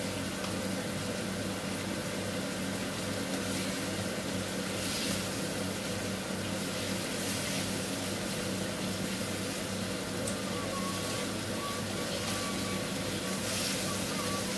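Chicken livers sizzling in a frying pan on a gas burner, with a wooden spatula stirring and scraping the pan now and then, over a steady low hum.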